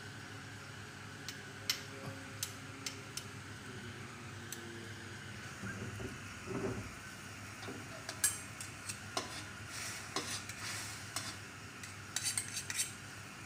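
Metal spoon and ladle clinking and scraping against an aluminium wok while stirring a little sauce, as scattered sharp taps that come in quicker clusters in the second half, over a faint steady hum.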